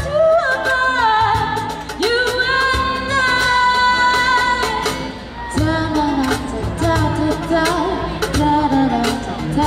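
A female singer singing a pop song live over amplified band accompaniment with a steady drum beat, holding some long notes.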